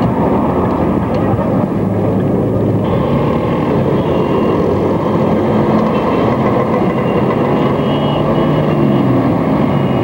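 Steady street traffic noise with motor vehicle engines running, heard from a moving rickshaw.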